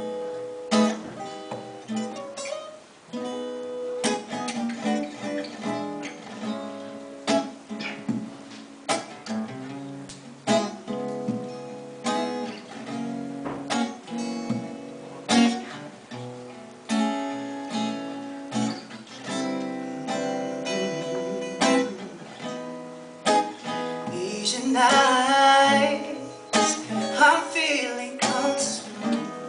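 Acoustic guitar played live, strummed and picked chords with a steady rhythm, and a man's singing voice coming in strongly near the end.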